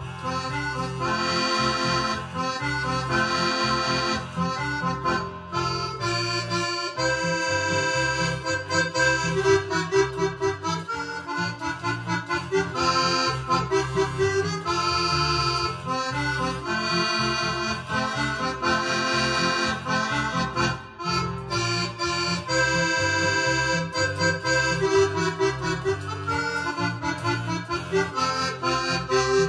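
Roland digital piano accordion playing a lively tune: a right-hand melody over a steady, rhythmic bass accompaniment.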